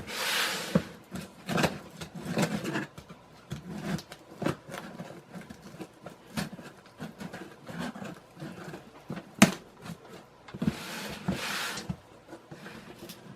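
Cardboard box and its packing being handled and opened: rustling and scraping with many light knocks, longer rustles at the start and about eleven seconds in, and one sharp knock about nine seconds in.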